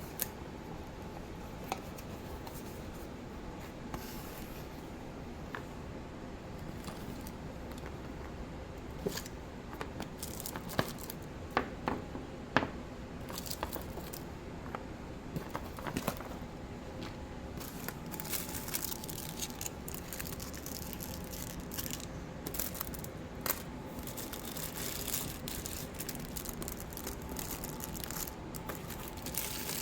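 Plastic packaging crinkling and tearing as small toys are unpacked, with scattered sharp clicks and taps, busiest about a third of the way in and crinklier over the second half.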